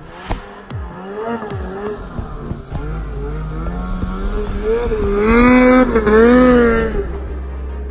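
Snowmobile engine revving as the sled rides through deep powder, its pitch rising and falling again and again with the throttle. Loudest as it passes close by about five to seven seconds in.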